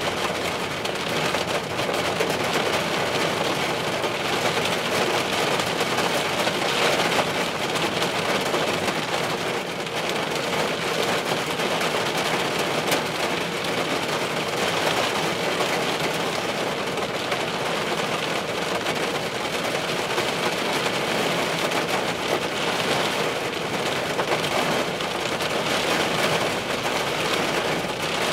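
Steady rain falling in a thunderstorm: an even hiss of rain that keeps much the same level throughout.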